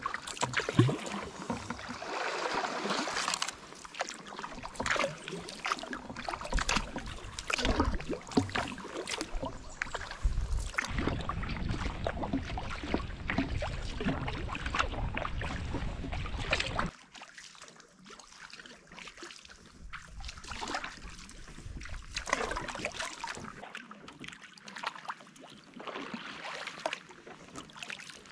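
Kayak paddling: paddle blades dipping and splashing in the water in irregular strokes, over a low rumble of wind on the microphone. The sound drops abruptly quieter about two-thirds of the way through, leaving fainter splashes and trickles.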